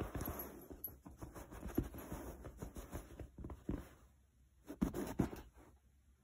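A hand scratching and patting a fabric chair cushion: irregular rustling and light taps, with a few sharper knocks near the end.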